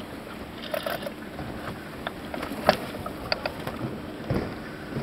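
Deck sounds aboard a Farr 30 racing sailboat under way: a steady rush of wind and water with scattered sharp clicks and knocks from deck gear, the loudest a single knock about halfway through.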